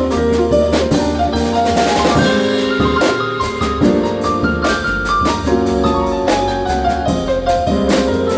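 Live jazz trio playing an instrumental passage: piano over a drum kit, with steady cymbal and drum strokes.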